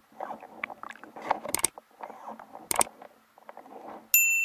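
Underwater crackling and rustling picked up by the camera during a spearfishing dive, with two sharp clicks, about one and a half and three seconds in. Near the end a loud, steady, bell-like chime starts abruptly.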